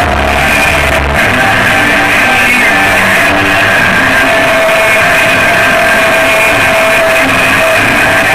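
Loud noise-rock music: a dense, steady wall of sustained tones, with a deep bass note cutting off about a second in.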